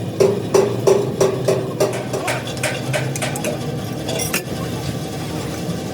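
Metal striking metal: several sharp ringing knocks, about three a second, in the first two seconds, then lighter clinks until about four seconds in, over the steady hum of a running machine.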